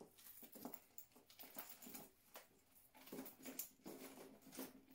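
Faint rustling and irregular light clicks of a handbag with a chain strap being picked up and handled.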